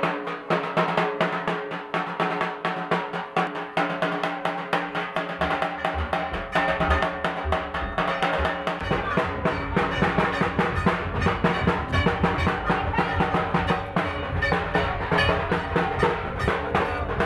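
Music built on fast, continuous drumming over sustained tones; a deep bass beat comes in about five seconds in.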